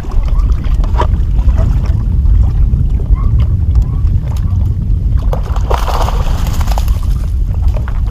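Wind rumbling on a body-worn microphone, with water sloshing against a boat and a brief splash around six seconds in as a hooked bass is brought to the landing net.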